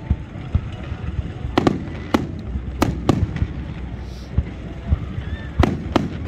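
Fireworks display: aerial shells bursting in a string of sharp bangs, about eight of them, several in quick pairs, over a steady low rumble.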